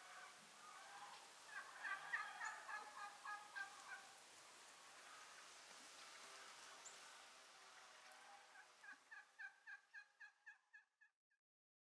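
Chickens clucking in quick runs of evenly spaced clucks: one run about two seconds in, and another near the end that fades out.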